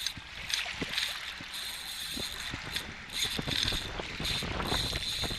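Spinning reel's drag buzzing in several short runs as a big hooked fish takes line; the angler suspects it is a shark. Low wind rumble on the microphone underneath.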